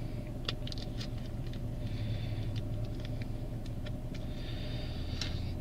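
Steady low hum of a car idling, heard from inside the cabin, with scattered small clicks and taps as small objects are handled.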